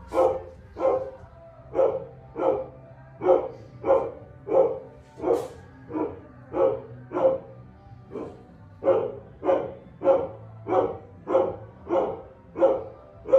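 A dog barking over and over, about three barks every two seconds, with one short pause a little past the middle.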